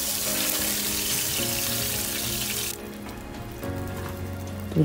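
Hot oil sizzling in a frying pan around pangas fish steaks, with soft background music of held notes underneath. The sizzle cuts off suddenly just under three seconds in, leaving the music alone.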